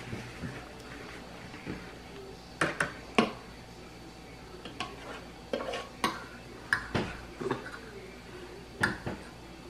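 Fork clinking and scraping against a dinner plate while eating: about ten sharp, separate clicks, the loudest about three seconds in.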